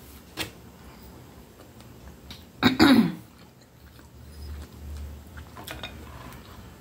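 A woman coughs about two and a half seconds in: a loud, sharp double burst whose voice falls in pitch at the end. A few faint clicks come before and after.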